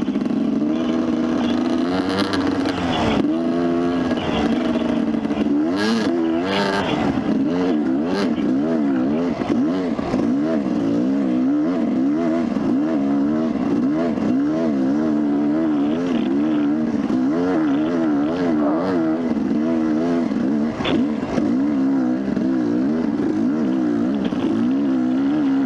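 Dirt bike engine running under load while climbing a steep dirt hill, its pitch rising and falling every half second or so as the throttle is worked. A few knocks come through near the start and again later.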